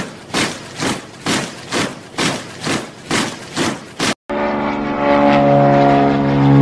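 A steady beat of sharp thuds, a little over two a second, breaks off suddenly about four seconds in. The steady drone of propeller aircraft engines then comes in and grows louder.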